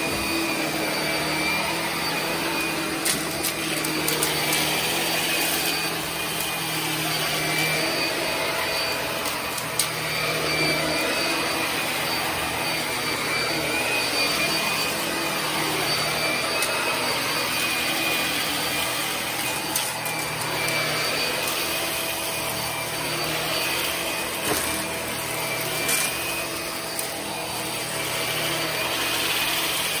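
Shark upright vacuum cleaner running steadily as its floor head is pushed back and forth over carpet. It has a constant high whine over the airflow noise, with a few faint ticks scattered through.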